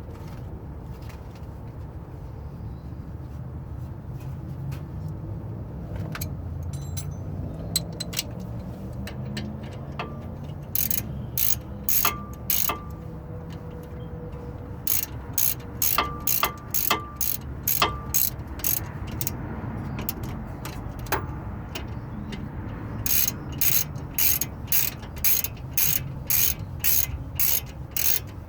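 Ratchet wrench clicking in runs of strokes, about two clicks a second, as it turns a bolt on the brake assembly, over a low steady rumble.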